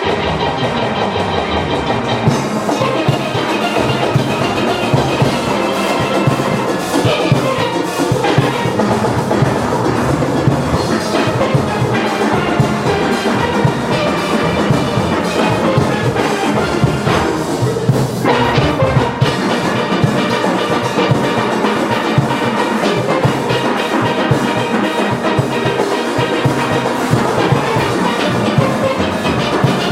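Steelband playing: many steelpans sounding together over a steady percussion beat.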